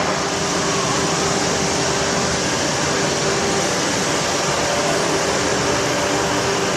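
Steady drone of machinery running on a kitchen-unit factory floor, an even whirring rush with a faint steady hum.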